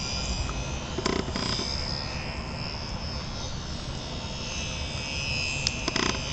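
HobbyZone Super Cub RC plane's electric motor and propeller whining in flight, the pitch shifting a little as the plane moves across the sky. Wind rumbles on the microphone, with a few brief thumps about a second in and near the end.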